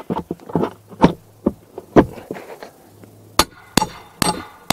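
Steel shingle remover tool knocking and clicking against rusted nails behind cedar shingle siding as it is worked to hook and pull them: irregular sharp metal taps, then four sharper ringing clicks about two a second near the end.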